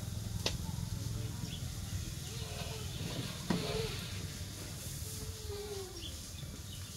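Water splashing lightly in a plastic tub as a young macaque paddles its hand in it, with two sharp clicks and a few faint gliding calls.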